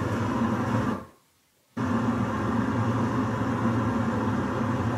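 In-car storm footage played through a hall's speakers: a steady loud rush of rain and wind on the car with a low hum under it. It drops out for under a second about a second in, then carries on.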